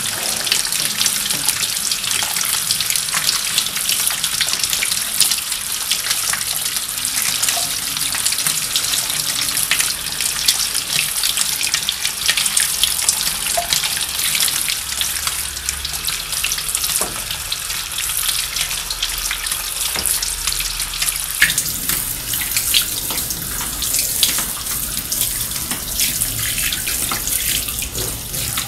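Water from a shower-spray watering nozzle falling onto potted succulents, their gravel-topped soil and plastic pots: a steady hiss with many small splashes, which the title likens to the sound of rain. The sound changes a little about 21 seconds in.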